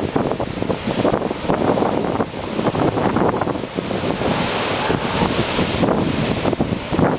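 Ocean surf breaking on a beach, with wind buffeting the microphone.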